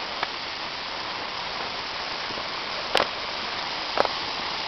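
Steady rushing of a waterfall, with sharp short clicks about three seconds in and again a second later.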